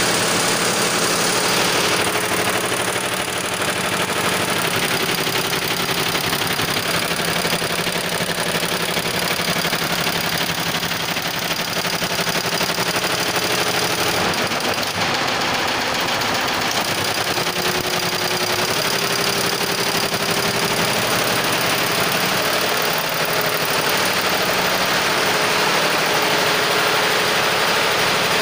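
Multi-head computerized embroidery machine running, its many needle heads stitching together with a steady, rapid mechanical clatter.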